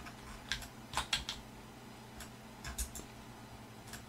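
Computer keyboard and mouse clicks, about ten scattered sharp taps, some in quick runs, over a faint steady hum.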